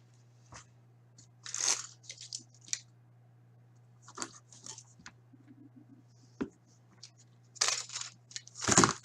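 Brief scratchy rustling and scraping from hands handling cardboard card boxes and their packaging, in three or four short bursts with a click between, over a faint steady low hum.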